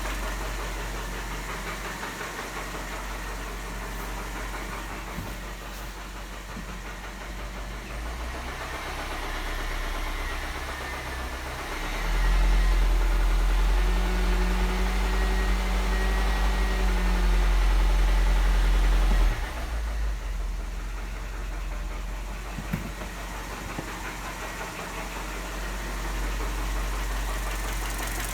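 Mini One 1.4 16-valve four-cylinder engine running with a knocking piston slap, the sign of worn pistons and cylinder bores. About halfway through it gets louder and deeper for about seven seconds, then drops back suddenly.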